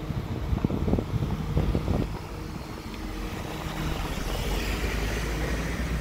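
Ford Transit Custom van driving past close by over cobblestones, its engine humming and its tyre noise swelling as it comes alongside about four seconds in.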